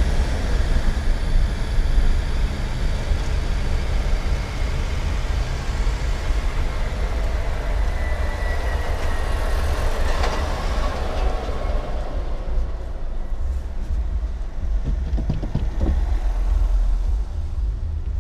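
Road and engine noise of a car driving in city traffic, heard from inside the cabin: a steady low rumble with a traffic hiss that swells about ten seconds in and then dies down.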